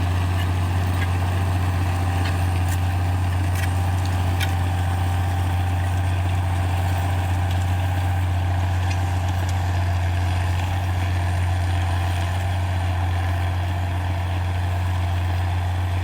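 International tractor engine running steadily with an even low hum.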